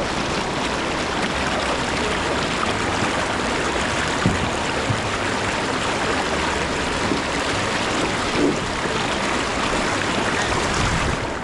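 Steady rush of river water over a rapid, with a few faint knocks. It cuts off suddenly at the very end.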